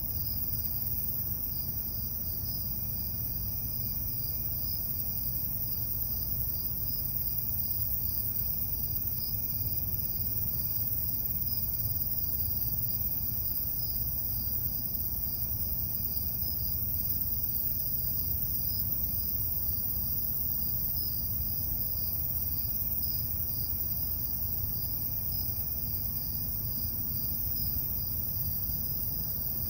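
Late-summer night insect chorus of crickets and katydids: a steady, continuous high trilling with a fine pulsing to it, over a low, steady rumble.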